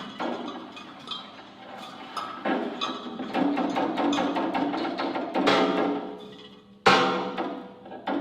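Percussive instrumental music: a patter of quick taps and clicks over pitched, ringing struck tones, with heavier strikes that ring out and fade, the loudest about seven seconds in.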